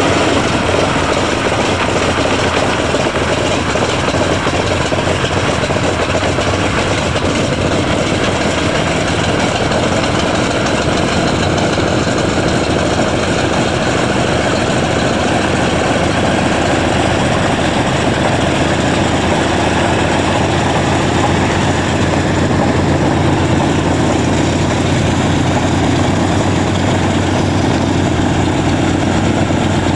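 Douglas A-26 Invader's Pratt & Whitney R-2800 radial engine idling steadily just after start-up, one engine running while the other stays stopped.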